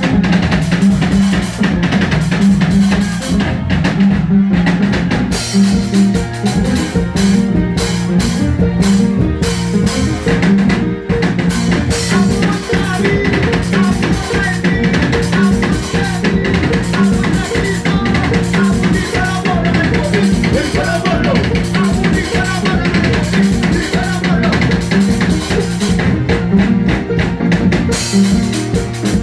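Band music with a drum kit beating steadily over a repeating bass line and melodic instruments.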